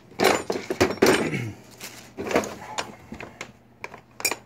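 Metal sliding, scraping and clunks from the cross slide and compound rest of a Grizzly G0602 bench lathe being worked by hand, with a sharp click near the end.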